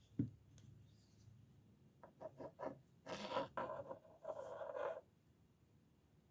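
Pocket knife being handled: a soft thump, a few short taps, then two scraping rubs of about a second each.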